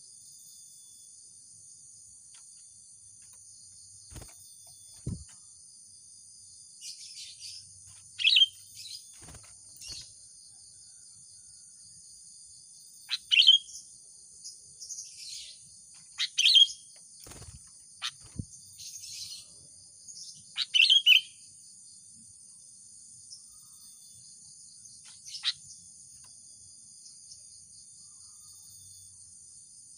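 Sooty-headed bulbul giving short, loud calls in clusters every few seconds, over a steady high insect drone. A few faint knocks fall between the calls.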